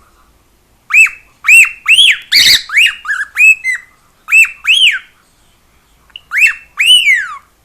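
Cockatiel whistling its song: short phrases of clear notes that rise and fall, separated by pauses, with a brief harsh squawk about two and a half seconds in.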